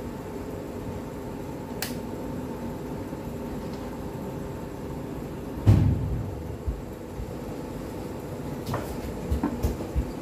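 Steady background hum with faint steady tones, broken by one loud, low thump about halfway through and a few faint clicks near the end, typical of a phone being handled while filming.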